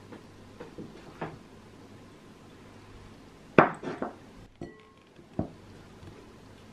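Kitchen utensils knocking against a glass mixing bowl and a wooden cutting board. A few soft taps come first, then a sharp clink about three and a half seconds in, followed by a few smaller knocks.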